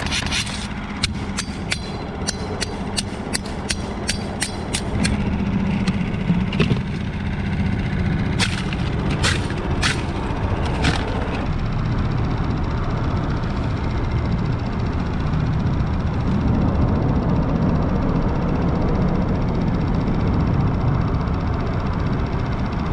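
Barnacles being scraped and knocked off a concrete bridge pylon: a run of sharp clicks, about two a second for the first five seconds and a few more around ten seconds in, over a steady low rumble.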